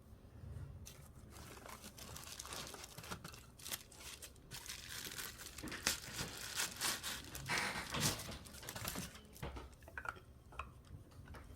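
Packaging material being crumpled and pulled apart by hand, a dense crinkling and crackling that builds up and is busiest in the second half before thinning out near the end.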